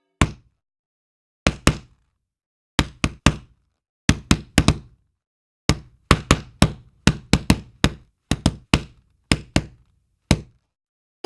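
Knocking sound effect: a series of sharp knocks in quick groups of two to four, with dead silence between the groups.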